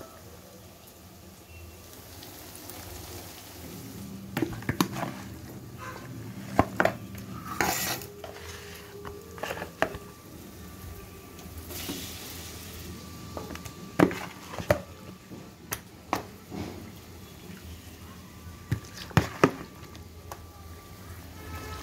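A metal spoon stirring marinated chicken pieces in a bowl, with irregular clinks and knocks against the bowl.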